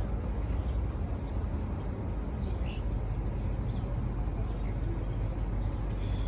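Steady low rumble of outdoor background noise, with a few faint short bird chirps near the middle.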